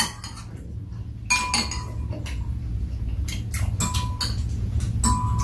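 Metal spoons clinking and scraping against ceramic bowls during a meal: about a dozen irregular clinks, a few of them ringing briefly. A steady low hum runs underneath.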